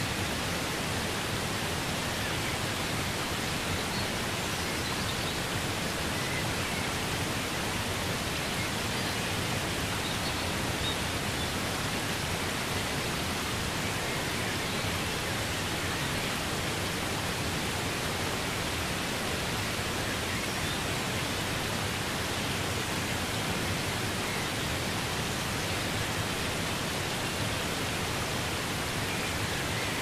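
Waterfall rushing steadily, an even, unbroken roar of falling and cascading water.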